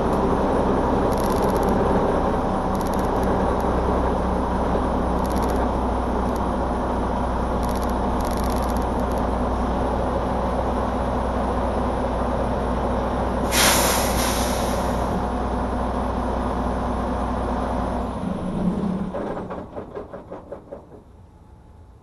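A Freightliner Cascadia semi-tractor's diesel engine running steadily, heard close up. About two-thirds through comes a loud hiss of released air, like the air brakes being set. Near the end the engine is shut off and runs down in slowing pulses to a stop.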